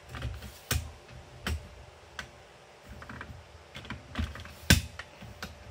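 Handling noise: a scattered series of sharp clicks and knocks with low rumble as the camera is picked up and carried, one knock about three-quarters of the way through louder than the rest.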